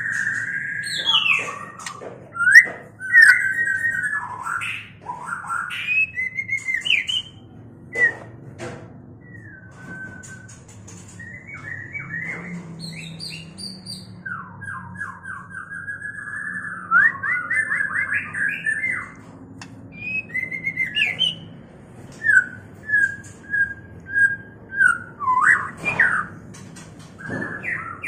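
White-rumped shamas singing and calling: a varied run of clear whistled phrases that slide up and down, with quick series of repeated notes, the calls of a male and female pair in breeding condition.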